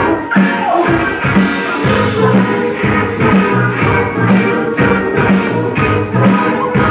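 Live rock band playing loud: electric guitars and bass over a steady drum beat, about two strokes a second.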